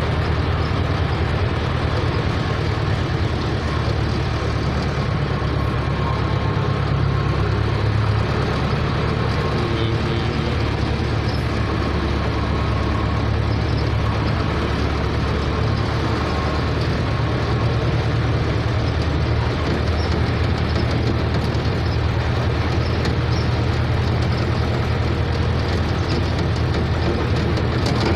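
Diesel engine of a Bimo rice combine harvester running steadily, a deep, even hum with no change in speed.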